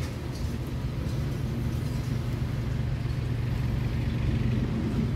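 A steady low hum from a running motor.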